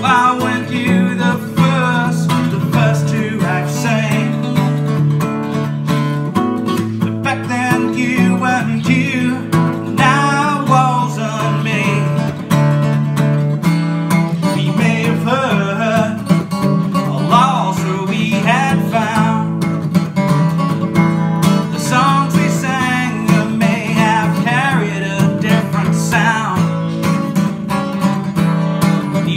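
Acoustic guitar strummed steadily, with a harmonica playing a wavering, bending melody over it.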